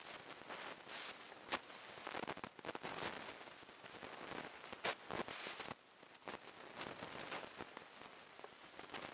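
Footsteps crunching on rubble-strewn ground of broken tile, concrete and grit, as irregular crackling steps.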